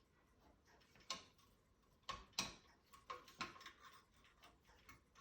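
Faint, light metallic clicks, roughly one a second, some in quick pairs.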